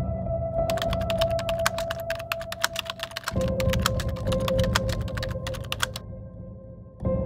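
Fast, uneven keyboard typing clicks, a sound effect for text typed out on screen, starting about a second in and stopping near the end. Under them is a steady droning ambient music bed that changes pitch midway.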